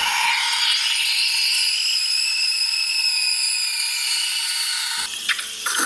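Mcilpoog home espresso machine's steam wand hissing steadily as it steams and froths soy milk in a pitcher, cutting off about five seconds in, followed by a few light knocks.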